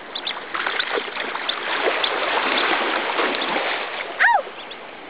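Sea water washing and splashing. About four seconds in comes a short loud voice call that rises and falls in pitch.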